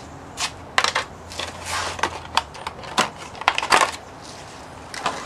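Irregular sharp cracks and crunches, about a dozen over three seconds and one more near the end, from a stack of Nissan Leaf battery modules as a cordless drill loosens its clamping bolt and the pressure comes off.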